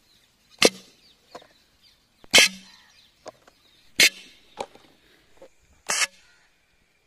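Homemade plastic-bottle air gun firing: four loud, sharp pops about one and a half to two seconds apart, with fainter clicks between them.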